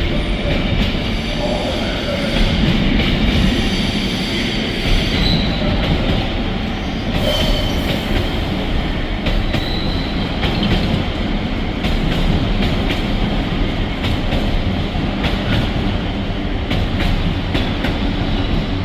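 Long intermodal freight train's wagons rolling past, with continual wheel clatter and clicks and a high wheel squeal that comes and goes.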